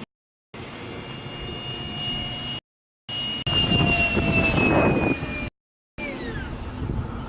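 RC Sniper jet's ducted fan whining in fast flight, loudest in a pass about halfway through as its pitch sags slightly, then falling in pitch near the end. The sound cuts out to silence three times for about half a second each, dropouts from the video's ripping software.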